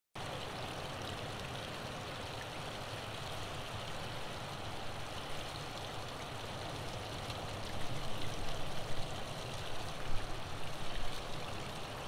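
Small beach waterfall running steadily over rocks, an even rushing and trickling of water. From about eight seconds in, a run of louder, irregular low-pitched pulses sits under it.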